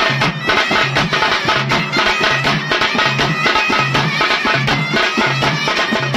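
Traditional South Indian folk music with fast, steady drumming and a repeating low bass figure.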